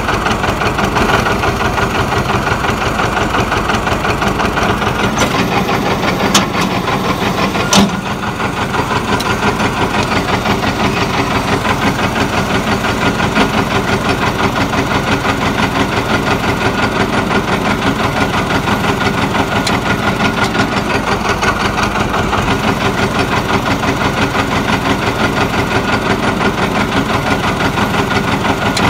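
John Deere 730's two-cylinder diesel engine running with an even, rapid firing beat. A sharp clack comes about eight seconds in, and the engine runs a little quieter after it.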